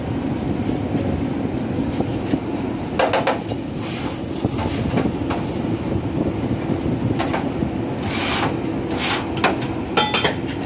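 Steady low rumble of a commercial kitchen around vertical shawarma broilers, with a few short knocks and clatters and a ringing metallic clink near the end.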